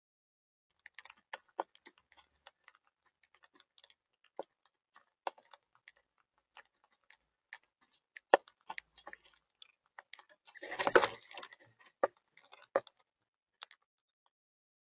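Irregular small clicks and crackles, with a denser crackling rustle about eleven seconds in.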